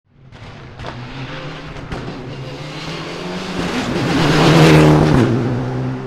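Mitsubishi Mirage Proto rally car approaching and passing at speed, its engine note building to a peak about three-quarters of the way through, then dropping in pitch as it goes by. Two sharp exhaust bangs crack out in the first two seconds.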